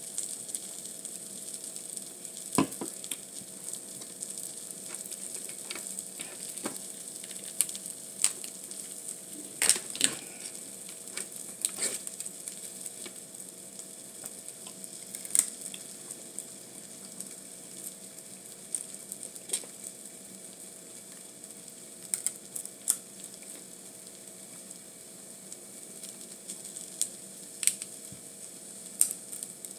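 Food sizzling steadily in a hot pan, with scattered short sharp clicks and taps over it.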